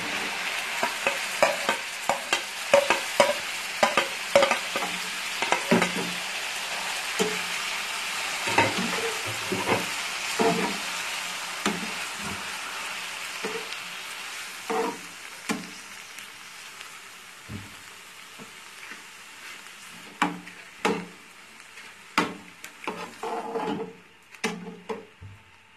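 Chopped tomatoes sizzling in hot oil in a frying pan, with a wooden spatula stirring and knocking against the pan. The sizzle fades gradually through the second half, leaving mostly the spatula's knocks and scrapes.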